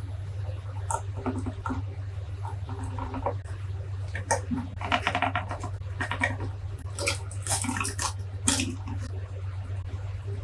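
A small screwdriver working screws in a Canon 400D camera's stripped metal chassis, with irregular light clicks and scrapes of metal and plastic parts being handled, over a steady low hum. A longer scraping rustle comes about halfway through, and a run of sharp clicks follows.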